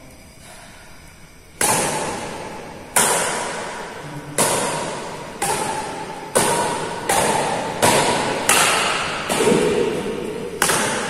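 Badminton racket strings striking a shuttlecock back and forth in a rally: about nine sharp hits, roughly one a second, starting a second and a half in. Each hit rings on in the echo of a large, bare hall.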